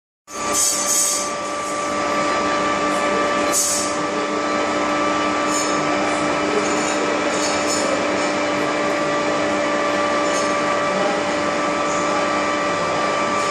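A machine running steadily, a constant hum and whine over an even noise, with a few faint ticks near the start and about three and a half seconds in.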